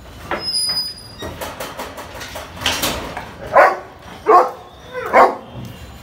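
A dog barking three times in the second half, one loud bark roughly every second.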